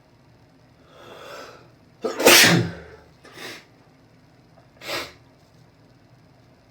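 A man's allergic sneeze: a drawn-in breath, then one loud sneeze about two seconds in, followed by two shorter breaths.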